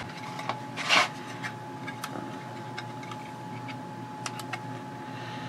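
Quiet room tone with a steady high electronic whine, a short hiss about a second in, and a few faint scattered clicks.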